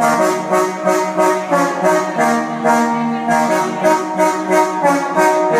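Recorded dance music played over a party sound system: a brass-led song intro, with horns playing a melody over a steady beat of about three hits a second.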